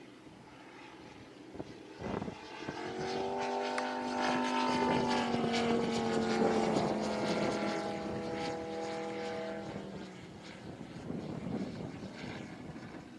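Engine and propeller of a radio-controlled scale Hawker Sea Fury model plane in flight, growing louder as it passes overhead. Its pitch falls slowly as it moves away and fades, loudest about halfway through.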